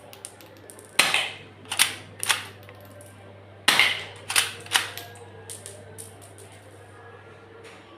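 Gold Desert Eagle pistol being fired or worked: about six sharp, snapping cracks over the first five seconds, some in quick pairs. Several lighter clicks follow toward the end.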